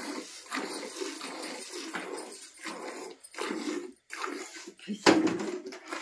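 Cow being milked by hand: alternating jets of milk squirting into a steel pail of frothy milk, about two squirts a second. A louder hit stands out about five seconds in.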